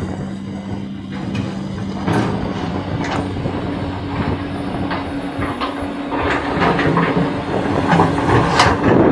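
Caterpillar hydraulic excavator's diesel engine running steadily, with rocks clattering and knocking against the steel bucket as it scrapes through rubble. The knocking grows louder and busier toward the end, with one sharp knock near the end.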